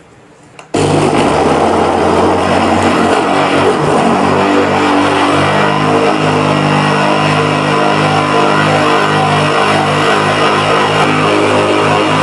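Electric blender (mixer-grinder) motor switched on under a second in and running steadily at full speed, churning a thick mango and yogurt lassi mix in its jar.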